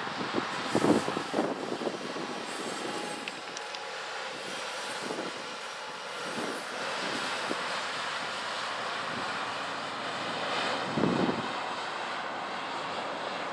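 A diesel rail track-tamping machine passing on the track, its engine running with a steady drone and its wheels rolling on the rails. Short louder swells come about a second in and again near the end.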